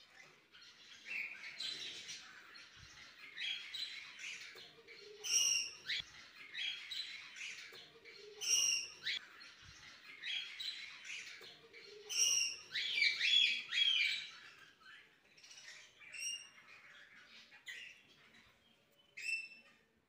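Caged finches chirping: short, high calls one after another with hardly a break, several birds overlapping, busiest a little past the middle.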